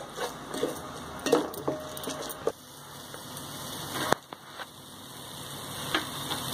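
Onion, green chilli and masala mixture sizzling as it fries in the metal pot of an electric rice cooker. A spoon clicks and scrapes against the pot in the first couple of seconds. After that a steady sizzle grows slowly louder, broken by a sharp click about four seconds in and again near the end.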